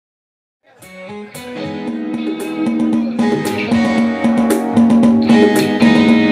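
Electric guitar playing a rhythmic chord pattern, fading in from silence about a second in.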